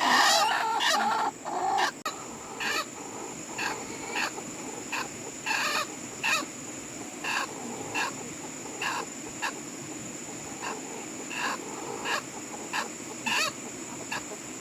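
Chickens clucking: a louder flurry of calls in the first two seconds, then short clucks repeating about every half second to a second.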